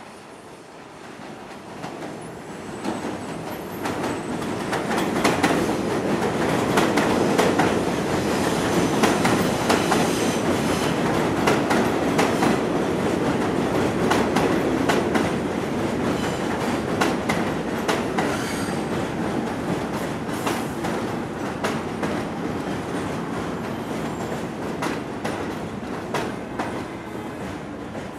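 R46 subway train on an elevated steel structure, running in and passing close by. Its rumble builds over the first few seconds, then holds loud with rapid clicking of wheels over rail joints and some high wheel squeal, easing off slightly toward the end.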